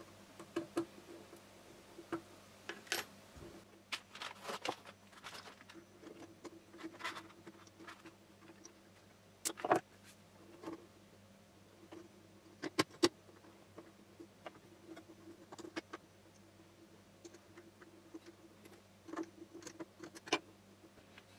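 Scattered light clicks, taps and knocks of hand tools and 3D-printed parts being handled on a wooden workbench during assembly of a belt-driven axis, the sharpest knock just under ten seconds in. A faint steady hum runs underneath.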